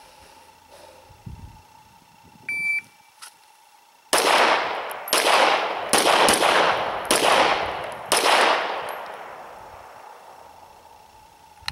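A shot timer's single short electronic beep, then about a second and a half later a fast string of 9mm Glock 34 pistol shots, fired in quick pairs and singles over about four seconds. Echo from the shots dies away slowly after the last one.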